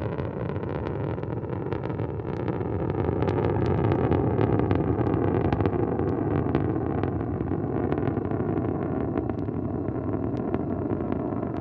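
Soyuz 2.1a rocket's first- and second-stage engines running in ascent: a dense, low rumble shot through with sharp crackling, growing louder over the first few seconds and then holding steady.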